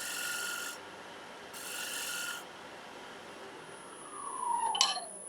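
Lathe tool shearing a light cut on a spinning walnut bowl, two short hissing passes to take out a tool mark. Near the end a whine falls in pitch, with a sharp click.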